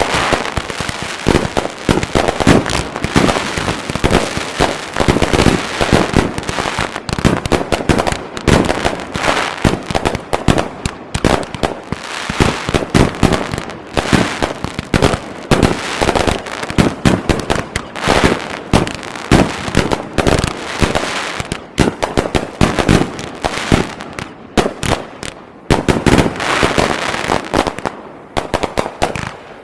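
Aerial fireworks display at full intensity: a dense, continuous barrage of shell bursts, booms and crackling with no pause.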